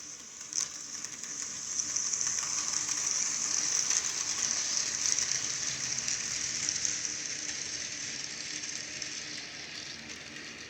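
HO scale model train running by on the track: a steady hissing rattle of wheels and locomotive motors that grows louder over about four seconds, then slowly fades as it moves away.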